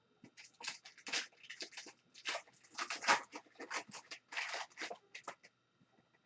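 Hockey card packs and cards being handled: foil wrappers crinkling and cards rustling and sliding against each other in a quick, irregular series of short crackles.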